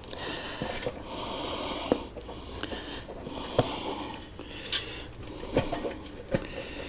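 Rubber bike tire being worked onto its wheel rim by hand: irregular rubbing and scraping, with a handful of sharp clicks and taps scattered through.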